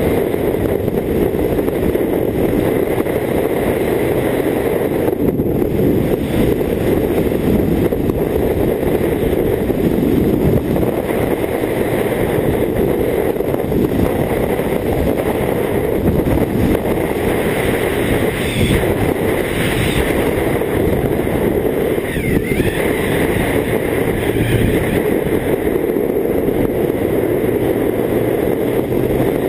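BMW K1600GT motorcycle cruising steadily on a road, heard from a camera on the bike: a constant rush of wind and road noise with the six-cylinder engine running at an even speed.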